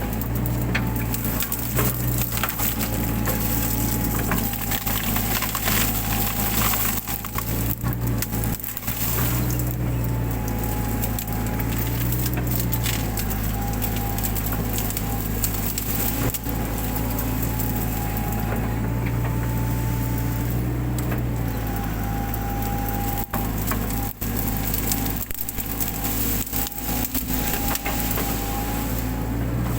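Mini excavator's diesel engine running steadily with a hydraulic whine that rises and dips as the arm works, while brush and branches crack and snap repeatedly as it tears through overgrown undergrowth.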